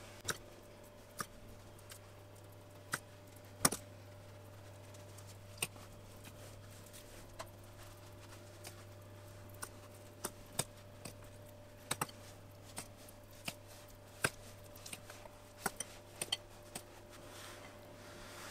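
Metal utensil clicking and tapping irregularly, about twenty short sharp clicks, against a glass bowl and on the table as cheese filling is scooped out and laid along the edge of a rolled-out dough sheet. A faint steady hum runs underneath.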